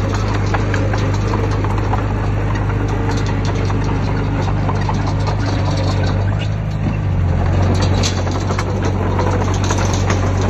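Heavy diesel engine of earthmoving machinery running steadily, its pitch shifting slightly about seven seconds in, with scattered clicks and knocks over the top.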